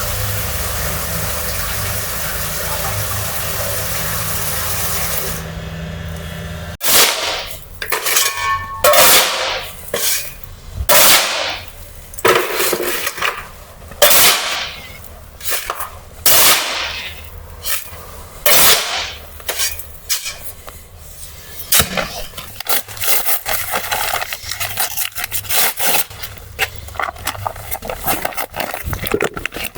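Factory machinery: a steady rushing run with a low hum, which cuts off suddenly about seven seconds in and gives way to a string of sharp, noisy strokes and clanks at irregular intervals of one to two seconds.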